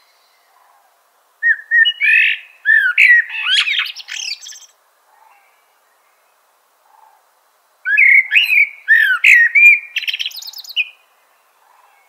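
Northern mockingbird singing: two bouts of quick, varied phrases, each about three seconds long, separated by a pause of about three seconds.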